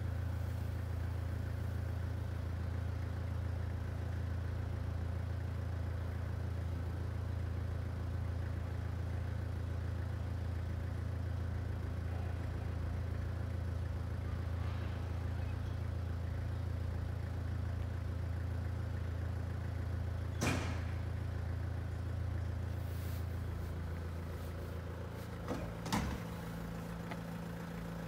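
A vehicle engine idling, a steady low hum whose note shifts a few seconds before the end. A sharp click sounds about two-thirds of the way through, and two more near the end.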